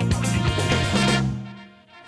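Short instrumental music jingle that fades out about a second and a half in.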